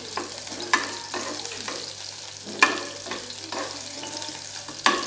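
Sliced shallots and garlic sizzling in a little oil in a small frying pan, stirred with a spatula. The spatula's strokes against the pan sound as a few sharp scrapes over the steady sizzle, the loudest about two and a half seconds in and just before the end. The aromatics are at the early sauté stage over low heat.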